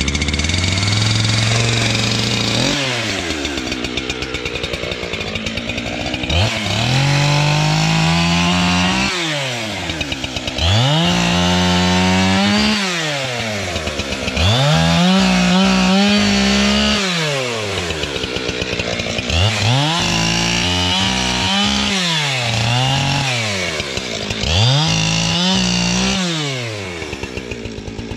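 Gas chainsaw repeatedly revved up to full throttle, held for two to three seconds, then let back down to idle, about six times, as it cuts up sawmill slabs.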